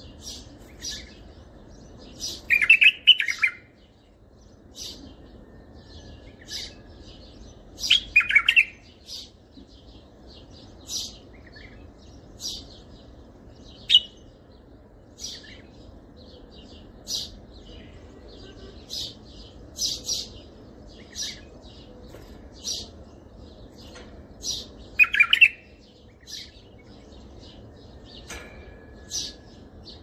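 Bulbul singing in the Baghdadi style, as a tutor song for young bulbuls: three loud, rich warbled phrases spaced through, among many short high chirps.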